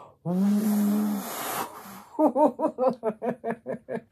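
A woman blowing one long, hard breath with her voice humming through it, then laughing in a quick run of about ten short bursts.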